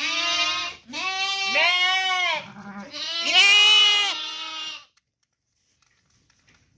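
Sheep bleating: several drawn-out, wavering bleats one after another that stop about five seconds in.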